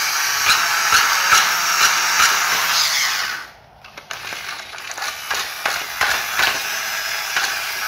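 Green plastic toy scooter being handled: a steady scraping, rattling noise of plastic parts with many small clicks, breaking off abruptly about three and a half seconds in for a moment, then going on.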